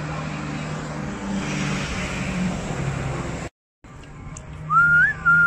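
Town street ambience with a steady low hum of road traffic. It cuts off suddenly, and near the end a single high whistling tone with a small wobble lasts about a second.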